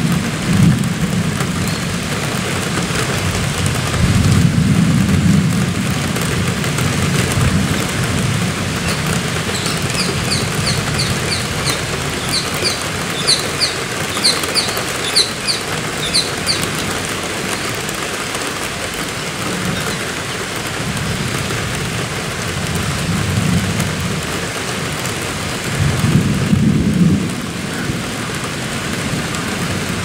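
Steady rain with low rumbles of thunder, strongest at the very start, about four seconds in and again near the end. From about ten to sixteen seconds a rose-ringed parakeet gives a run of short, high-pitched calls, about two a second.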